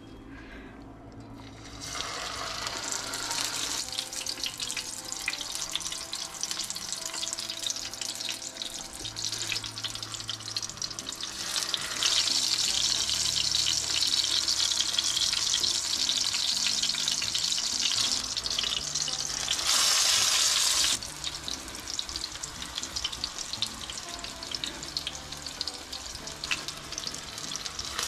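Potato kababs frying in hot oil in a frying pan: a steady sizzle that starts about two seconds in as a patty goes into the oil, and grows louder about twelve seconds in.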